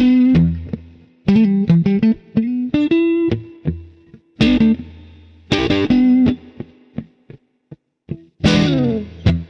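Fender Stratocaster electric guitar on its neck-and-middle pickup position with a lightly overdriven tone, playing strummed chords and short single-note phrases that ring out between attacks. Near the end there is a downward slide in pitch.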